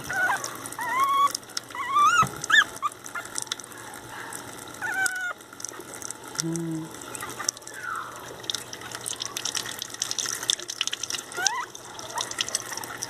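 A five-week-old Pinscher puppy whimpering while being bathed, in short high, rising squeals: a run of them in the first couple of seconds, more around five and eleven seconds in. Under it, a running water tap splashes steadily into the sink.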